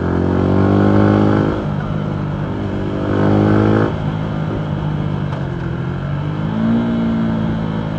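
Single-cylinder engine of a 2019 Yamaha MT125 through a full Akrapovic exhaust, accelerating. Twice the engine note climbs in pitch and then drops suddenly, as at a shift or as the throttle closes. It then runs lower, with a shorter rise near the end.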